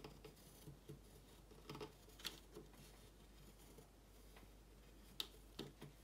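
Near silence, with a few faint, scattered taps and light scratches of a paintbrush working texture onto a birdhouse roof.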